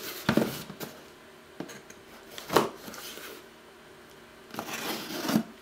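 Small cardboard box being handled and turned over on a rubber workbench mat: a few knocks and a scraping, rustling stretch near the end.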